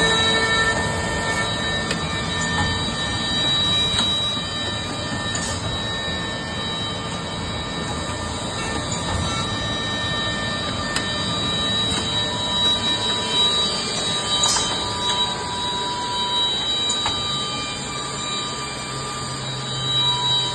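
Törk Naviga 360 edge banding machine running: a steady mechanical din with several high whining tones held over it and a few sharp clicks now and then.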